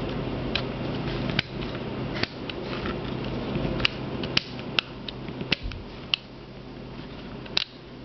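Number dials of a luggage combination lock clicking as they are turned notch by notch to set a new code, with the reset button held in: a series of sharp, irregularly spaced clicks over a steady low hum.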